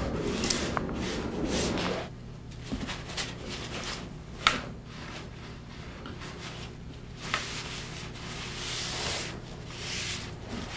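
Cloth pad rubbing over a wooden stand as shellac is wiped on: soft rubbing strokes, busiest in the first two seconds, then quieter, with a few light clicks.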